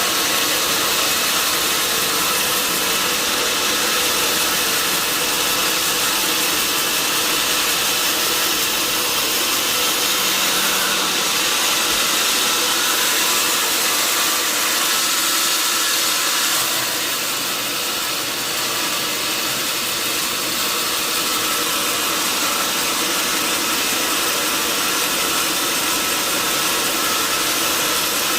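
Sawmill log saw running steadily, a continuous loud mechanical noise that dips slightly about 17 seconds in.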